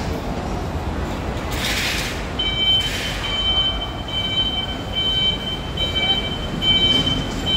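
Street traffic rumble under an elevated road, with two short hisses in the first half. From about two and a half seconds in, a high electronic beeping tone repeats in short pulses.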